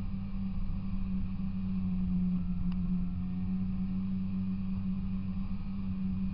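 Snowmobile engine running at a steady pitch while the sled travels across snow.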